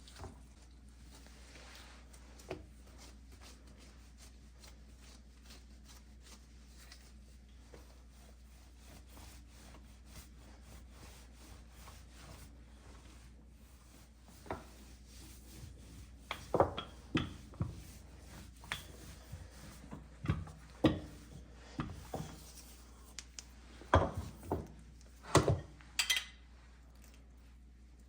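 Kitchen work sounds: light rubbing and scraping strokes, then from about halfway a string of sharp knocks and clacks of utensils on wood and dishes, some in quick pairs.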